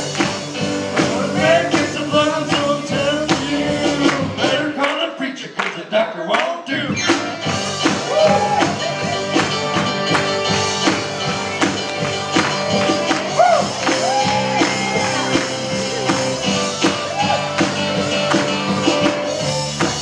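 A song: singing over a band, with a tambourine keeping a steady beat. About five seconds in, the bass drops out for roughly two seconds.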